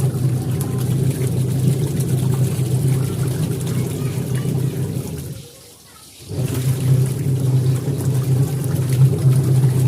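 Twin-tub washing machine's wash motor running with water sloshing in the tub. It winds down a little past halfway, pauses for about a second, and starts again: the run-pause-reverse rhythm of the wash pulsator, a sign the once-dead machine is working.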